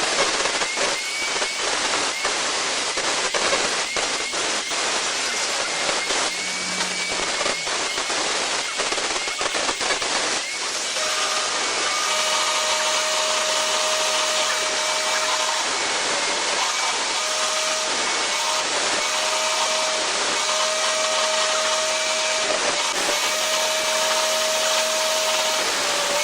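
A small motor running loudly with a rushing noise and many sharp clicks; about ten seconds in, a steady high whine sets in and breaks off briefly every couple of seconds.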